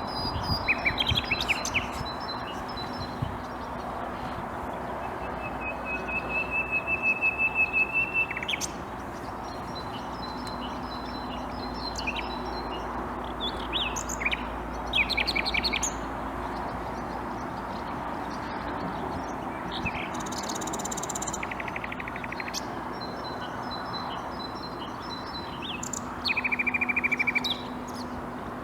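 Common nightingale singing in separate, varied phrases a few seconds apart. One phrase is a run of rapidly repeated piping notes that grows louder; others are fast rattling trills. A steady background noise runs underneath.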